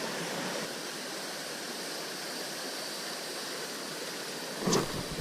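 Creek water running with a steady rushing hiss, and a single brief thump near the end.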